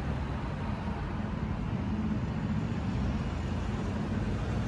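Road traffic heard from high above: a steady low rumble of cars on the roundabout and roads below.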